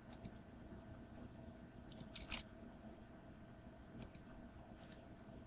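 Faint computer mouse and keyboard clicks: a few short, scattered clicks, some in quick little clusters, the loudest about two seconds in, over a faint steady hum.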